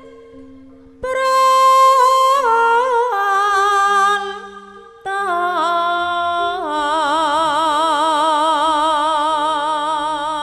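Javanese female singer (sindhen) singing long, drawn-out melismatic notes with wide vibrato over a gamelan accompaniment. One phrase enters about a second in and fades around four seconds, and a second enters about five seconds in and is held to the end.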